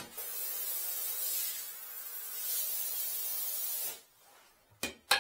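Handheld shower head spraying water into a bathtub, a steady hiss that stops about four seconds in; the water is run to test a repaired bathtub drain trap. A sharp click as the spray starts and two short knocks near the end.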